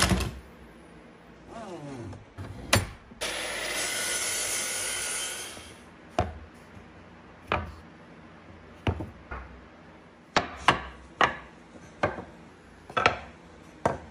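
Plastic-and-steel bar clamps clattering on a wooden workbench. Then comes a few seconds of steady noise, followed by a run of sharp, separate wooden knocks about once a second as cut pine pieces are set down and fitted on the bench.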